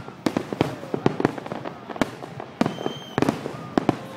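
Fireworks bursting in a show: many sharp bangs at irregular spacing, several a second.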